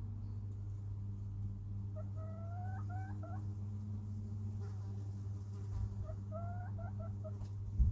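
Hens giving short rising calls in two runs, about two seconds in and again about six seconds in, over a steady low hum.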